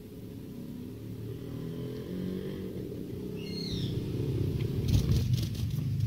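Yellow-vented bulbul giving a short chirp of a few quick gliding notes about halfway through, over a low hum that shifts in pitch. A run of clicks and rustling comes near the end.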